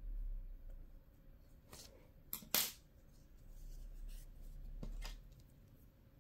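Faint handling sounds of hands working yarn and a needle on a small crocheted doll piece, with a few short sharp clicks about two seconds in, the last of them the loudest, and a smaller click near the end.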